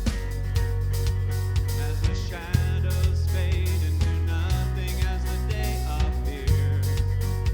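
Contemporary worship band playing a song, with a steady bass line, a drum kit and guitar, and a sung melody above.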